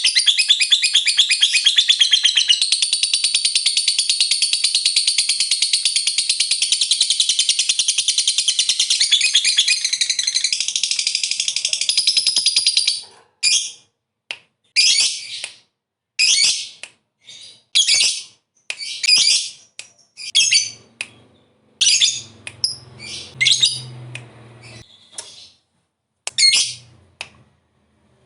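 Lovebird giving a long, rapid chattering trill, the 'ngekek panjang' prized in fighter lovebirds, for about the first thirteen seconds, then breaking off into short separate chirping bursts roughly a second apart.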